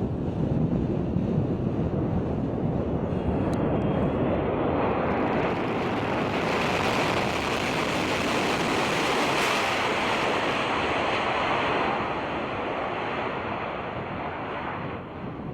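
Boeing C-17 Globemaster III's four turbofan engines in a steady jet roar as it lands on a dirt airstrip, with wind buffeting the microphone. The roar grows brighter and louder in the middle, then fades away in the last few seconds.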